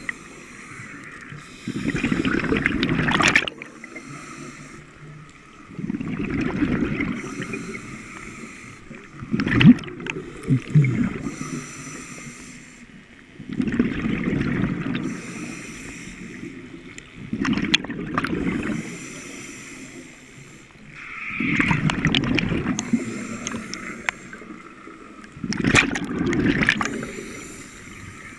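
Scuba diver breathing through a regulator underwater: a thin hiss on each inhale and a loud burst of exhaust bubbles on each exhale, about one breath every four seconds, seven breaths in all.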